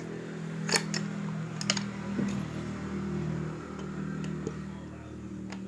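Sharp Tiger pump air rifle being handled: a few sharp clicks and light knocks, the clearest just under a second in and again near two seconds, over a steady low hum.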